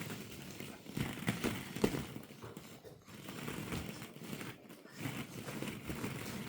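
Plastic ball-pit balls rattling and knocking against each other in an uneven clatter of small ticks, as something moves through the pit.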